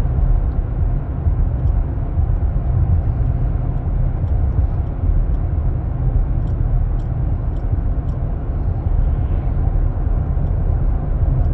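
Chevy Colorado pickup cruising at highway speed under towing load, heard from inside the cab: a steady low rumble of engine and road noise, the engine turning about 2,000 rpm.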